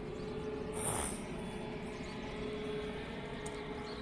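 Steady distant rumble of a passing jet airliner, with a faint steady hum and a brief hiss about a second in.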